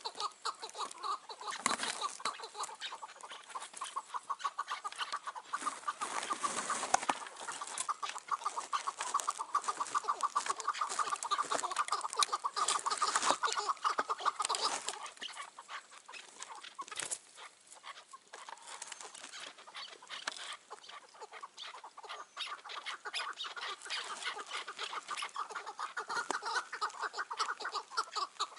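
Chukar partridges calling: a fast, continuous run of clucking 'chuk' notes. The calling eases off about two-thirds of the way through and picks up again near the end.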